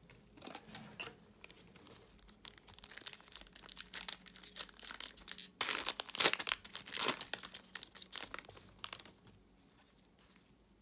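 A foil pack of Panini Hoops basketball cards being crinkled and torn open by hand, a run of crackling rustles that is loudest about six to seven seconds in and dies away by about nine seconds.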